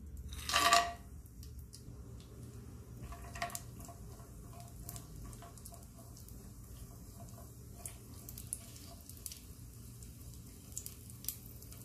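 Cashews and raisins tipped into hot ghee in a nonstick pan, with a short burst of sizzling about half a second in. Then a quiet frying sizzle with scattered clicks and scrapes as a spatula stirs them.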